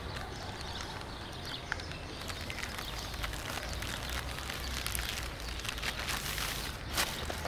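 Steady outdoor background hiss with many small scattered clicks and crackles, and a sharper click near the end.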